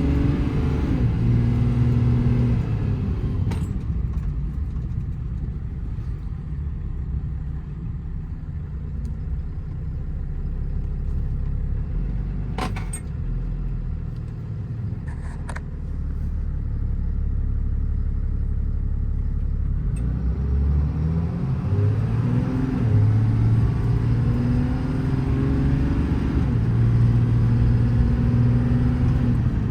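Cummins 6.7-litre inline-six turbo-diesel of a Ram 5500 work truck pulling on a drive, a steady engine note that eases off in the middle and then rises as the truck accelerates about two-thirds of the way through. A few short clicks are heard along the way.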